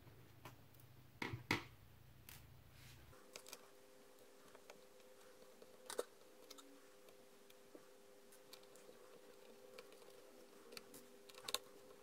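Faint clicks and taps of a screwdriver and small screws on a laptop's plastic chassis while the screws holding the CPU heatsink are taken out: a louder pair of clicks about a second in, single ones about six and eleven seconds in, over a faint steady hum.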